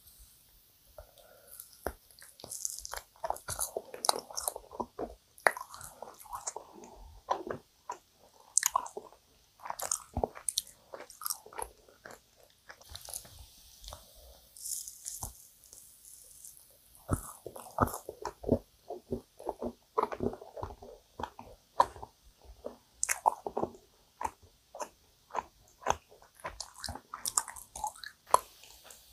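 Close-miked eating of dense, sticky yakgwa (Korean honey-fried pastry) topped with ice cream: bites and wet, sticky chewing with many sharp mouth clicks throughout.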